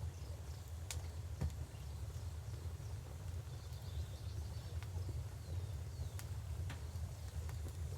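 Wood fire crackling, with about half a dozen sharp pops at uneven intervals, over the steady low rush of a river.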